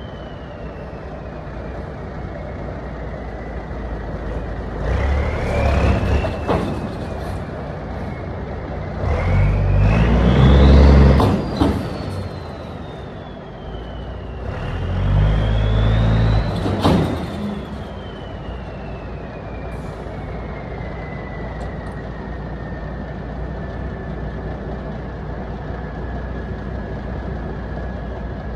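Kenworth cabover's turbo-diesel engine revved three times, the turbocharger whistle rising with each rev and falling away after it, with a short sharp sound closing each rev. After the third rev the whistle winds slowly down as the engine settles back to a steady idle.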